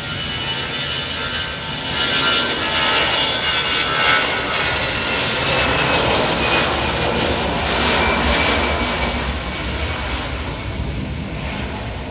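Jet airliner's engines passing by: a steady high whine, then a roar that swells to a peak in the middle with the whine's pitch dropping slightly, and eases off near the end.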